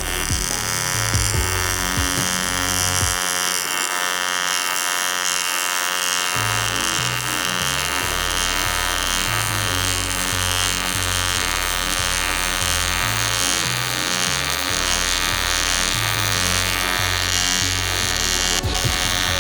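Background music with a bass line that drops out for a few seconds about three seconds in, over a steady high buzzing drone that stops just before the end.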